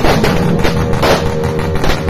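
Background rock music with a heavy drum beat and sustained guitar.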